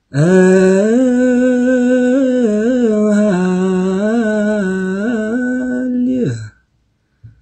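A solo male voice chanting one long melismatic phrase of Ethiopian Orthodox liturgical chant in Ge'ez, holding the note and wavering through small ornaments, then sliding down and stopping about six and a half seconds in.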